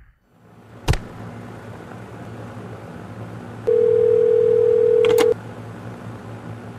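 A sharp click about a second in, then a telephone dial tone: one steady tone that sounds for about a second and a half and cuts off with a couple of clicks, as from a desk phone's handset.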